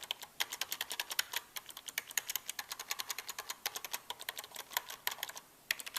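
Fast typing on a rubber dome keyboard: a quick, uneven stream of key clicks, with a brief pause near the end.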